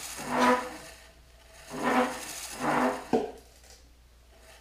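Boring-bar cutter bit scraping metal in the tractor's rear case as the bar is turned by hand with the motor off. There are three short scraping squeals of the same pitch, then a sharp click about three seconds in.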